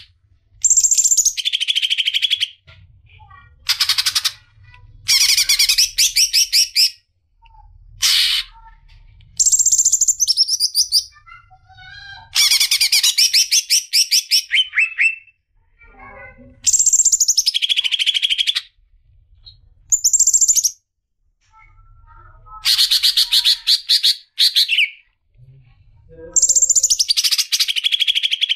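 Songbird singing loud phrases of rapid chattering notes, many sweeping down in pitch, about ten phrases with short pauses between them.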